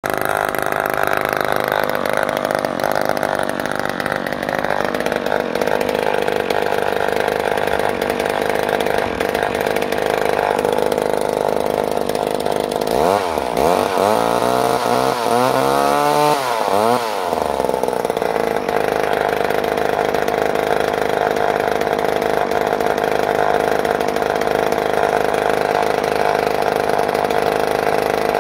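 McCulloch Power Mac 6 two-stroke chainsaw (32.8cc) running steadily at idle. About halfway through, the throttle is blipped in several quick revs, each rising and falling in pitch, before the engine settles back to idle.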